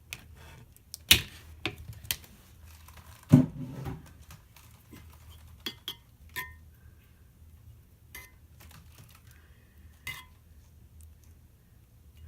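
Irregular clinks and knocks of a utensil and containers, like a spoon against a bowl while mixing. The loudest are a sharp knock about a second in and a heavier thump a couple of seconds later, with a few short ringing clinks near the middle and end.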